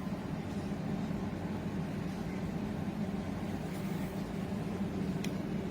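Steady low rumble of a running car heard from inside the cabin.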